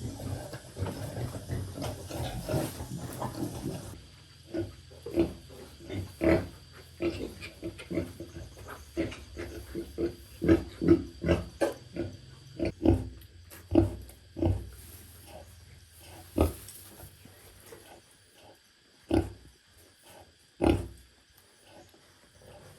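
Pigs grunting: many short, irregular grunts, more crowded and over a noisier background in the first few seconds, then spaced apart with a few louder ones near the end.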